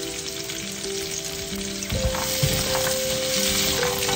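Cashews, onions and dried red chillies sizzling in hot coconut oil in a nonstick frying pan, with a silicone spatula stirring them and knocking against the pan.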